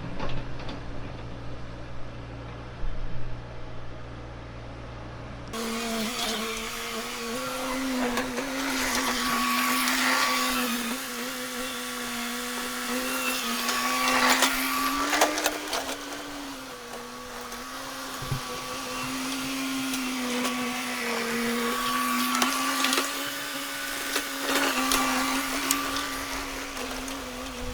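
Excavator running. For the first five seconds there is a low engine hum, then the sound changes suddenly to a steady machine whine with a few sharp knocks and clanks.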